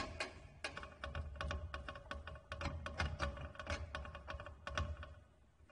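Screwdriver turning a self-tapping screw out of a sealer's metal heating bar: a run of irregular light metallic clicks, about three or four a second, that stops about five seconds in.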